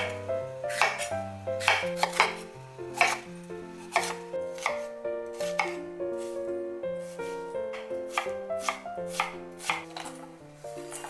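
Chef's knife slicing a bell pepper and then an onion on a wooden cutting board: sharp knocks of the blade striking the board, a few a second, thinning out for a moment around the middle.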